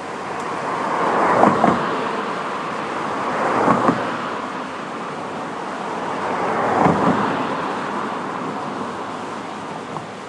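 Three road vehicles drive over a railway level crossing one after another. Each swells and fades, with a quick double thump at its peak as its wheels cross the rails.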